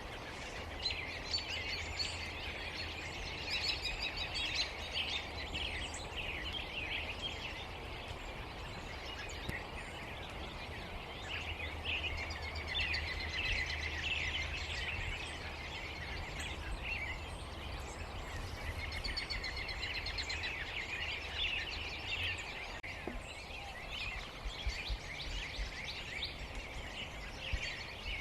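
A large mixed flock of blackbirds (red-winged blackbirds, common grackles and cowbirds) calling all at once in a dense chatter of high chirps that swells and fades in several waves, over a low steady hum.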